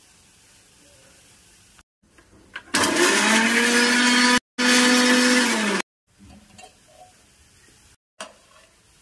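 Electric mixer grinder grinding green chutney, running loud for about three seconds from about three seconds in. Its motor whine rises as it spins up and drops as it stops, with a brief gap midway.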